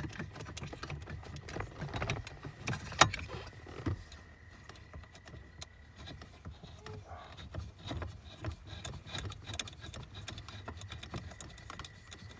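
Scattered small clicks, knocks and rattles of screws, washers and trim parts being handled during hand disassembly of a car's interior, with one sharper knock about three seconds in.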